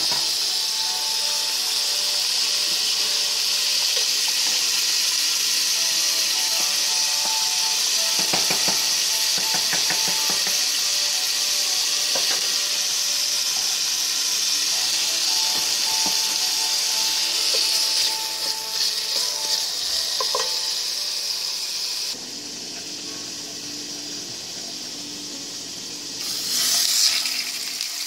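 Food sizzling steadily as it cooks in a pot on the stove, with faint music underneath. The sizzle dies down about three quarters of the way through, then a short louder sizzle comes near the end.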